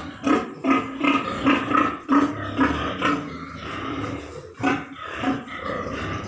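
White pig grunting over and over in short calls, about two or three a second, with a brief lull about four seconds in.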